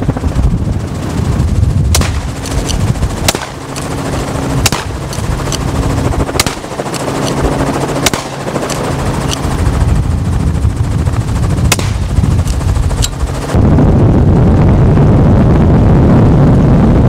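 Helicopter running, heard from inside the open cabin, with a series of sharp cracks, about seven over some ten seconds: shots from a net gun fired at running whitetail deer. About three-quarters of the way through, the rotor and wind noise jumps louder and steadier.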